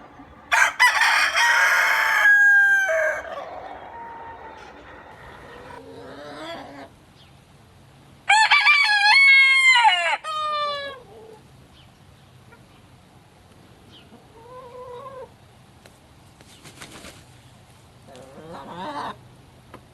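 Roosters crowing: two loud crows, one starting just after the beginning and another about eight seconds in, each ending on a falling note. Fainter crows or calls come in between and near the end.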